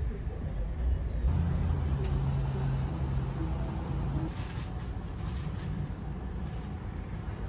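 Low, steady engine rumble of a motor vehicle.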